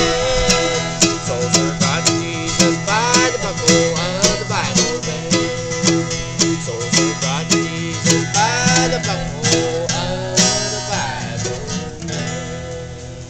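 Bluegrass instrumental ending on banjo and acoustic guitar: quick picked notes over a steady bass, with some sliding notes, dying away in the last second or so.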